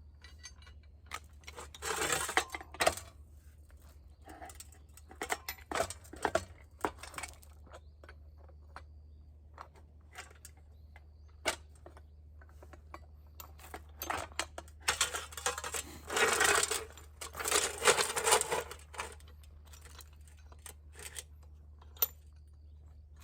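Metal parts and tools clinking and knocking as they are handled, with two stretches of rough scraping noise, about a second long near the start and several seconds long in the second half, over a steady low hum.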